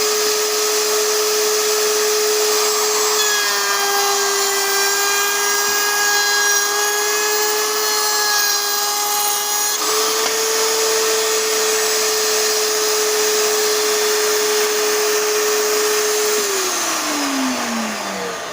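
Kobalt K11RTA-03 router running in its router table with a steady high whine. From about 3 to 10 seconds in, the pitch dips slightly and a second, higher whine joins as the bit cuts into wood. Near the end the motor is switched off and the whine falls away as it spins down.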